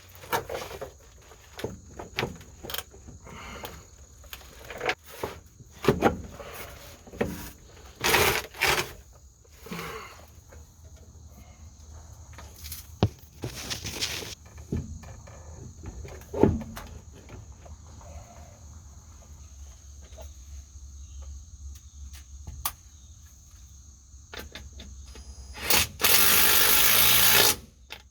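Metal parts and hand tools knocking and clicking while a driveshaft is fitted under a pickup truck, in scattered short knocks. Near the end comes a loud burst of noise lasting about a second and a half.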